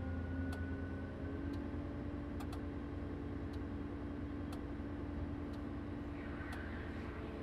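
Komatsu HM-300 articulated dump truck's six-cylinder diesel engine held at steady raised revs, heard inside the cab, while it drives the hydraulics hoisting the loaded dump body. Faint, irregular ticks are heard over the steady drone.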